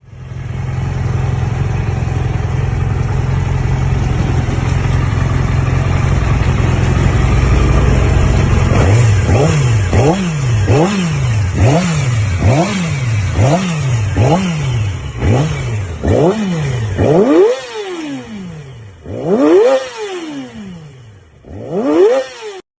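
Stock-exhaust Yamaha YZF sport bike inline-four idling steadily, then blipped in quick revs about once a second, then revved harder three times with the revs falling back slowly after each; the sound cuts off abruptly near the end.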